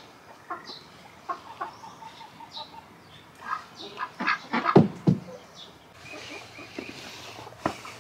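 A flock of chickens clucking and calling, with a quick run of short clucks a little after a second in. Several sharp knocks about halfway through are the loudest sounds.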